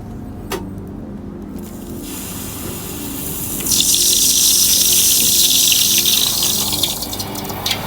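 Hot sand-cast silver quenched in water: a hissing, rushing boil that starts about two seconds in, is loudest for about three seconds, then dies away.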